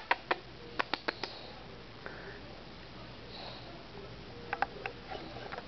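Sleeping bulldog's noisy nasal breathing, with short sharp clicks: several in the first second and a half and a few more near the end, with soft breaths between.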